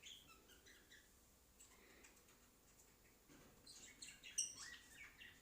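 Faint bird chirping, with a few short chirps near the start and a cluster of chirps around four seconds in.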